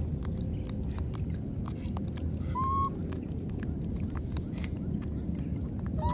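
A baby macaque gives one short, slightly rising coo call about two and a half seconds in, with a second call starting at the very end. Under it runs a steady low rumble with scattered small clicks.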